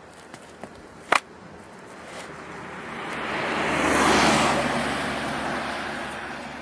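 A car passes on the road: engine and tyre noise swell to a peak about four seconds in, then fade. A single sharp knock comes about a second in.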